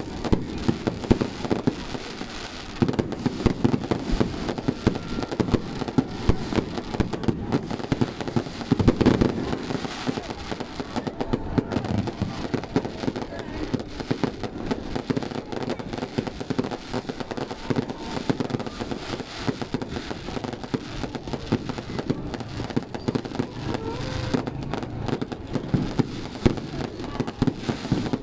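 Fireworks display: many shells and crackers bursting in a dense, continuous barrage of bangs and pops with no break.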